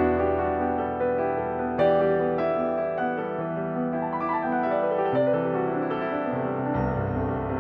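Background piano music: a gentle keyboard melody over held chords, with a quick rising run of notes about four seconds in.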